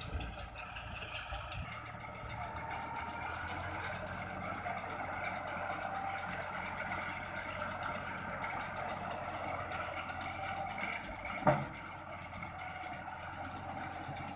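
Tractor engine running steadily while driving a round baler, with one sharp knock about eleven and a half seconds in.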